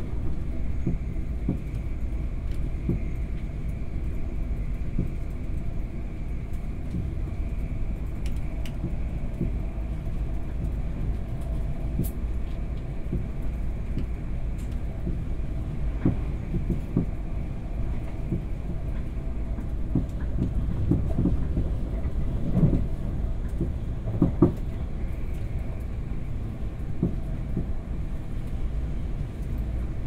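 A moving train heard from inside a passenger carriage: a steady low rumble with scattered irregular knocks and thuds from the running gear. The loudest couple of knocks come about three-quarters of the way through.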